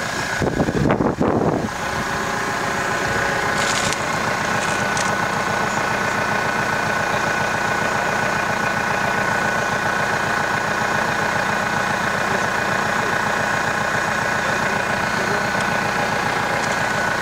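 Compact orchard tractor's diesel engine running steadily while towing a subsoiler with its shanks in the ground. A brief louder rush comes about a second in.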